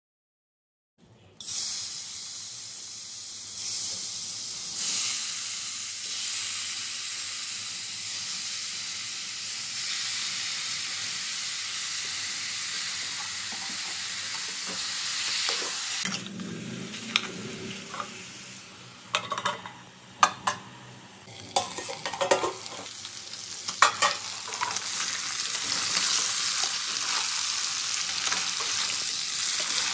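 Pork pieces sizzling as they fry in a pan, a steady hiss that starts about a second and a half in. Midway the hiss drops for a while and a metal spoon scrapes and clinks against the pan as the meat is stirred, then the sizzling picks up again.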